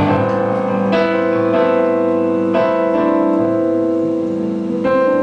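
Background music: piano or electric-keyboard chords, held and changing about every second and a half.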